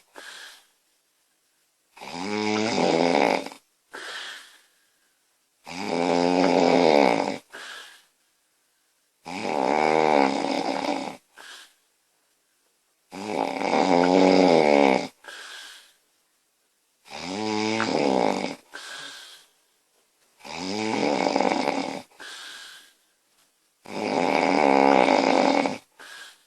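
A woman snoring loudly in her sleep: seven long snores about four seconds apart, each followed by a short, fainter sound.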